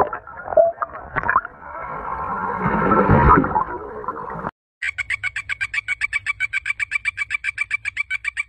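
An animal call: a noisy, mixed animal sound that builds and cuts off about four and a half seconds in, then a fast, even trill of pulses, about ten a second.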